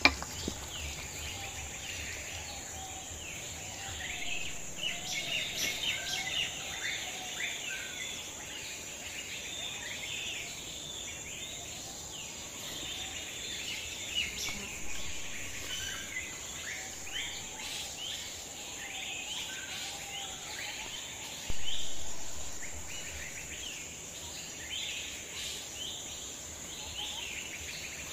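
Outdoor ambience of many birds chirping over a steady high insect drone. About two-thirds of the way through there is a sudden low thump that fades over a couple of seconds.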